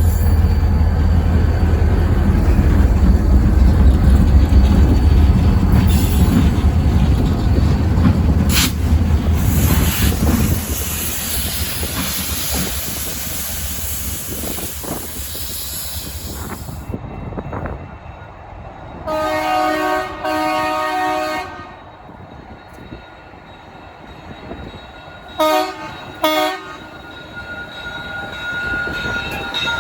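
A train passing close by with a deep rumble that fades away after about ten seconds. Then a diesel locomotive horn gives two longer blasts, and a few seconds later two short ones.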